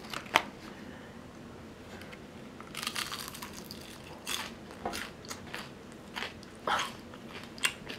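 Biting and chewing crispy-coated boneless honey fried chicken: a run of short, irregular crunches from about three seconds in. There is a sharp tap near the start.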